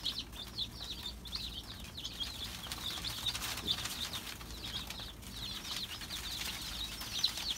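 A brood of Amber Star chicks peeping without pause, many short high cheeps overlapping, thinning a little midway.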